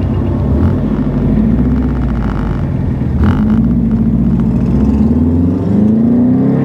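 Subaru STI's turbocharged flat-four engine running under load and climbing in revs near the end. Two short bursts of hissing noise, about a second and about three seconds in, are typical of the HKS blow-off valve venting between throttle lifts.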